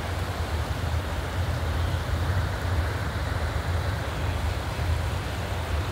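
Steady rush of a shallow, rocky river running over stones, an even noise without breaks.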